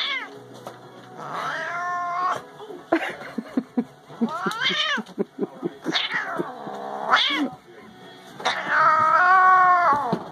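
A cat yowling: a defensive caterwaul given as several drawn-out calls that bend up and down in pitch, the longest near the end, with short low pulsing sounds between them about three to five seconds in.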